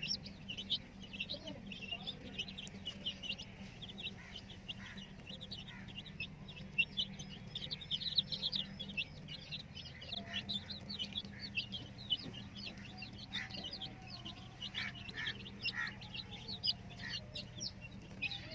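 A group of domestic chicks peeping without pause, many short high cheeps overlapping, over a faint steady low hum.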